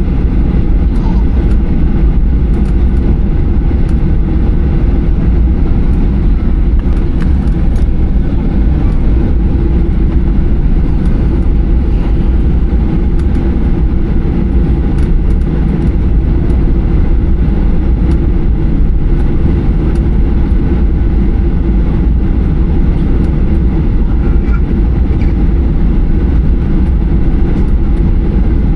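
Boeing 737-800 cabin noise heard from inside the cabin: a steady, loud rumble of engines and rushing airflow, with no change in pitch or level.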